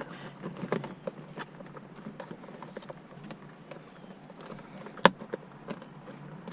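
Small clicks and taps of plastic steering-column parts being handled and fitted, with one sharp, loud click about five seconds in.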